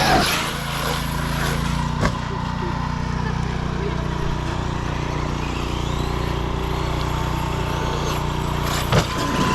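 A steady low engine hum with a faint high tone above it, broken by sharp knocks about two seconds in and again near the end.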